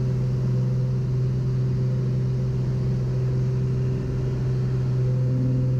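Piper light aircraft's piston engine and propeller running steadily at climb power, a constant low drone heard from inside the cockpit.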